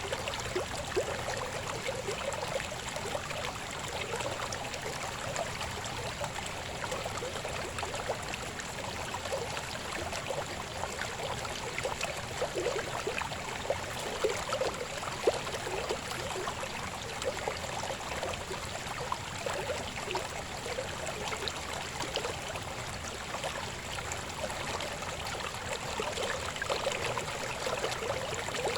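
A shallow river babbling and gurgling over stones, a steady flow of water with constant small splashes and bubbling.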